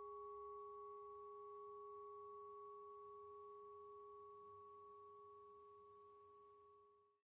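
Faint background guqin music: one sustained note rings on as two pure steady tones, slowly fading, then cuts off to silence about seven seconds in.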